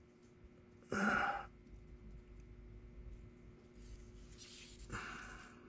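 A man breathes out audibly, like a sigh, about a second in, and a softer breathy noise follows near the end, over a faint steady hum.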